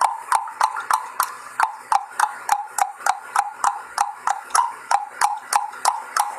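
A person making sharp clicks at the mouth in a steady, even run of about three a second.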